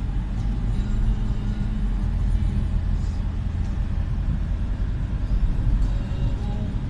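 Steady low rumble of a car's engine and tyres heard from inside the cabin.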